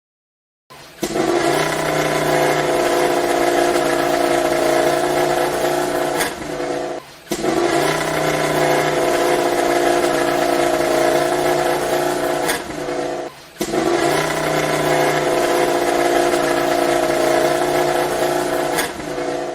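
MotoGP racing motorcycle's four-cylinder engine held at high revs at a steady pitch. It comes in three runs of a few seconds, each opening with a short rise and broken by a brief drop in level.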